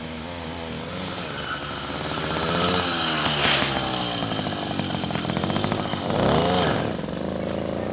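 Small petrol engine of a motorized bicycle running and revving, its pitch rising and falling, with a quick rev up and back down about six seconds in.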